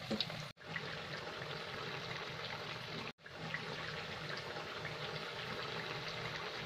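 Suji and raw-potato vadas deep-frying in hot oil in a kadhai: a steady sizzle and bubbling with small crackles. It cuts out briefly twice.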